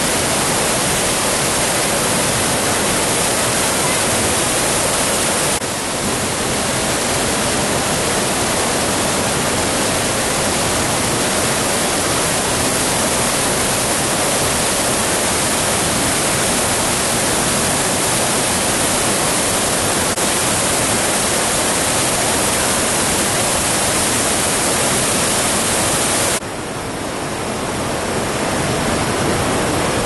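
Waterfall: a loud, steady rush of falling water. The level dips briefly about six seconds in, and near the end the hiss drops and then builds back.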